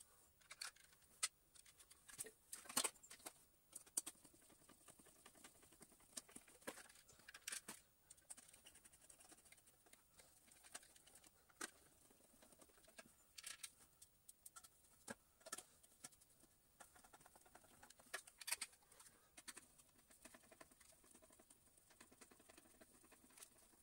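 Faint, irregular clicks and taps of a screwdriver and small plastic vacuum-cleaner parts being handled while the top cover is screwed on.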